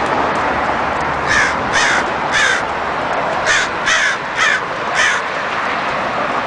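A bird giving about seven short, harsh calls in two runs, three and then four, over a steady hiss of highway traffic.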